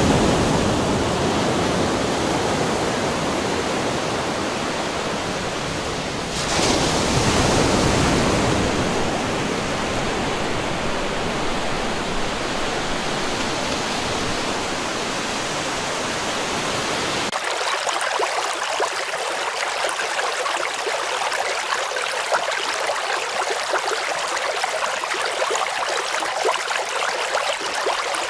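Running water: a full rushing of water that swells about six seconds in and slowly eases. About seventeen seconds in it cuts abruptly to a lighter, thinner babbling of a small stream.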